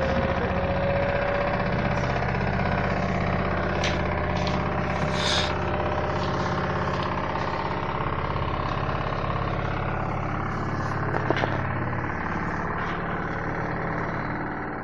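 LG washing machine running on a test after its drain pump has been replaced: a steady motor hum, with a tone that rises slowly over the first few seconds and a few light clicks.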